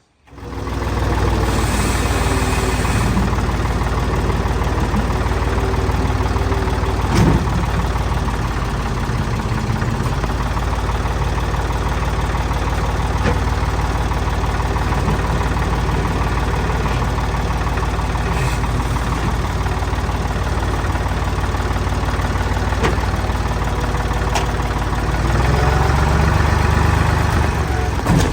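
Tractor engine running steadily, with a sharp knock about seven seconds in and a few fainter ones later; the engine gets a little louder near the end.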